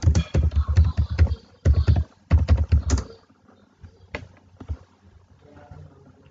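Keystrokes on a computer keyboard: quick runs of typing for about three seconds, then a few single key presses.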